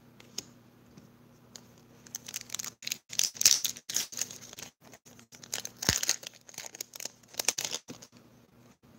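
Foil Pokémon card booster pack being torn open and crinkled in the hands: a run of crackling tears and crinkles that starts about two seconds in and stops about a second before the end.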